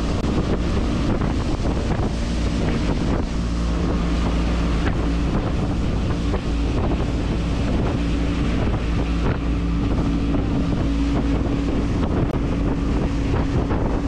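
Outboard motor of a fiberglass skiff running steadily at speed, with wind buffeting the microphone and water rushing and splashing along the hull.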